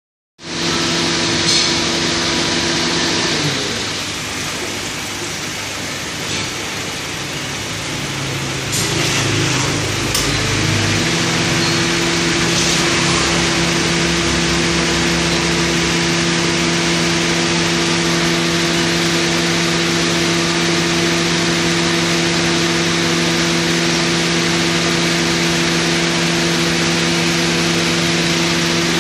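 A steady machine hum with a constant hiss behind it. It thins and wavers for a few seconds early in the clip, with a brief low rumble, then settles back to an even drone.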